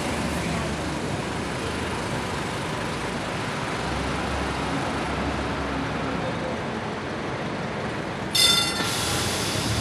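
Street tram passing close by: a steady rumble of rolling traffic, then a sudden sharp metallic ring or screech from the tram about eight seconds in that dies away over half a second, leaving a faint high tone.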